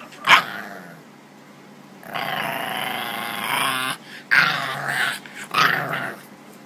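Bulldog puppy growling and grumbling in protest: a short sharp sound just after the start, a long drawn-out grumble from about two seconds in, then two more short outbursts.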